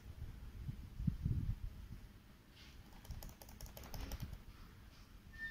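Faint computer keyboard key presses, a quick run of a dozen or so clicks through the middle of the stretch, while the code on screen scrolls down. Soft low rumbles come near the start.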